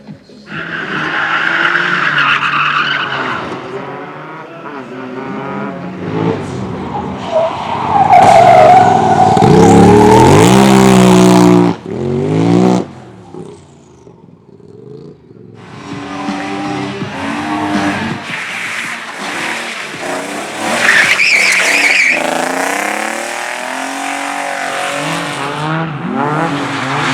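Cars being driven hard through slalom and drift runs: engines revving up and down with tyres squealing and skidding. About eight seconds in, one car comes close and is loudest for a few seconds before the sound drops away abruptly.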